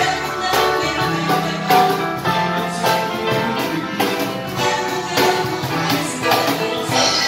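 Small live ensemble playing a tune together: electronic keyboard, melodica, strummed acoustic guitar and cajon, with a steady beat.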